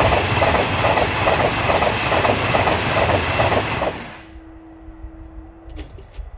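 A train passing close by, loud, with a rhythmic clatter of its wheels at about three beats a second. It cuts off suddenly about four seconds in, leaving a faint steady hum and a few light clicks.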